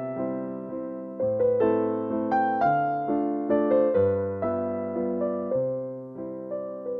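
Background piano music: a gentle melody of evenly paced notes, each struck and fading.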